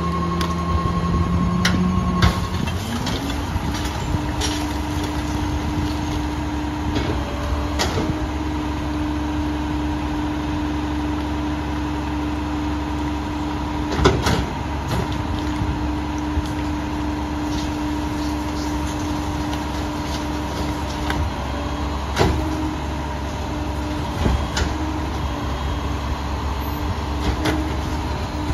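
Peterbilt 337 garbage truck with a New Way Viper rear-loader body: the engine speeds up about two seconds in as the hydraulics engage and holds a steady raised idle while the packer blade and cart tipper run. Several sharp knocks of recycling carts and the tipper banging against the hopper.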